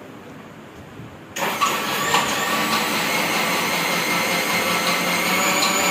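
Boss electric mixer grinder switched on about a second and a half in, its motor then running steadily with a whine over a loud whirr as it blends cold coffee.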